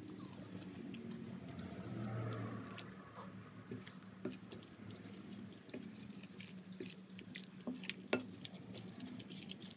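Gloved hand mixing chicken pieces into a thick, wet marinade in a bowl: faint squelching with scattered small clicks.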